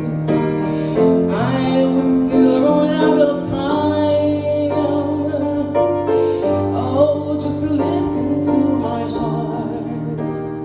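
Gospel worship song: piano accompaniment with singing.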